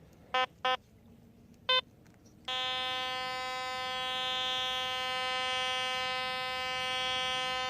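Metal detector beeping three short times, then sounding one steady unbroken tone from about two and a half seconds in while held over the target, which the hunter takes for iron, probably a nail.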